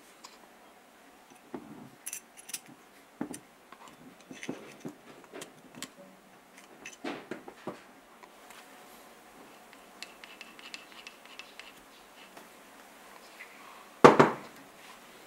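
Metal parts of a vintage Shinko right-angle drill being handled on a wooden workbench during disassembly: scattered small clicks, scrapes and light knocks. Near the end there is one louder knock as the aluminium gear housing meets the bench.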